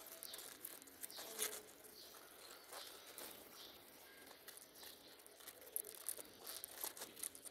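Pigeons pecking at pelleted feed and grain in a plastic bowl: faint, irregular clicks and rattles of beaks striking the pellets, coming thicker near the end.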